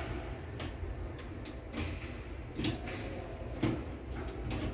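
Screwdriver turning the mounting screws of a plastic wall outlet plate, giving irregular light clicks and scrapes as the plate is levelled and tightened.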